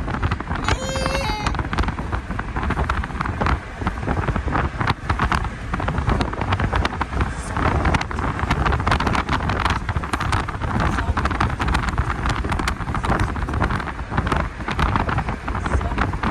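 Wind buffeting the microphone over a steady low rumble, with a brief high warbling chirp about a second in.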